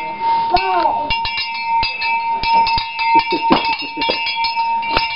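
A cowbell shaken and banged by a small child: a quick, irregular run of clanks, the bell ringing on between strikes.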